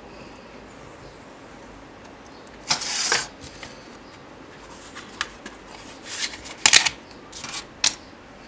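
A thin plastic sheet and steel ruler being handled on a cutting mat: a rasping scrape lasting about half a second, about three seconds in, then a string of sharp clicks and short scrapes, loudest about seven seconds in.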